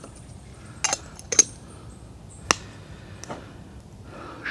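Wood sticks burning in a small Esbit camp stove under a mug of water, used as fuel in place of its solid fuel tablets; the fire gives four or five sharp cracks, spaced irregularly, over a faint steady background.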